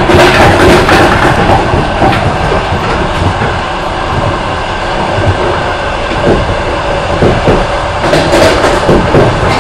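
Passenger train running at speed, heard from aboard: a steady rumble and rush of wheels on the rails. A few clickety-clack knocks come between about five and eight seconds in.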